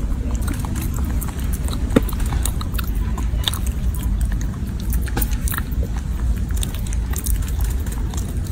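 Baby macaque biting and chewing a red-skinned fruit close up: many sharp crunching clicks over a steady low rumble.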